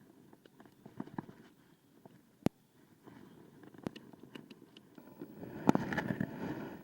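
Scattered clicks and knocks of gear being handled on a fishing kayak, with one sharp click about two and a half seconds in and a louder rush of noise near the end.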